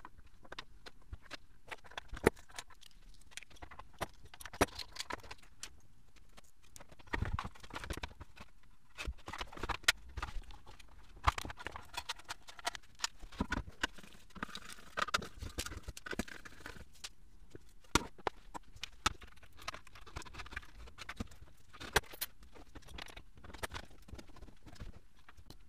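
Irregular clicks, taps and knocks of plastic and aluminium panel parts and hand tools being handled on a workbench as the laser's front control panel is dismantled, with a few heavier knocks among them.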